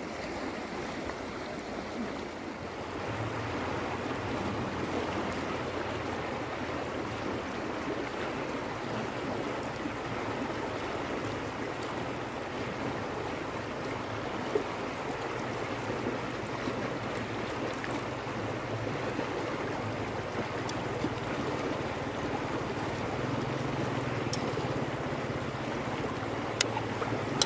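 River water rushing steadily over rocks, with a few faint clicks.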